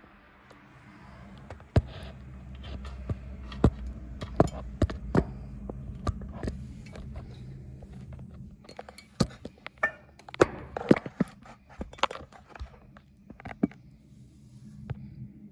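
Irregular clatter of sharp clicks, knocks and scrapes from objects being handled, thickest in the second half, over a low steady hum.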